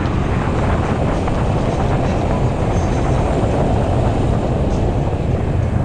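Steady, loud rush of wind buffeting the microphone, mixed with road rumble, while riding a Ninebot Z10 electric unicycle.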